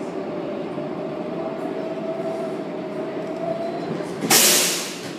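On-board sound of an R188 subway car running through a station: a steady rumble with a held whine that ends a little past three seconds in. About four seconds in comes a sudden loud hiss of air that fades out within a second, typical of the train's air brakes as it comes to a stop.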